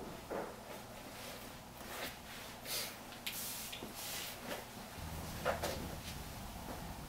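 Soft rustling bursts and a few small clicks over a low room hum, which gets louder about five seconds in.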